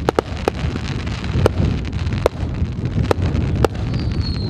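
Fireworks display: sharp bangs of bursting shells about once a second over a continuous low rumble, with a high whistle starting near the end.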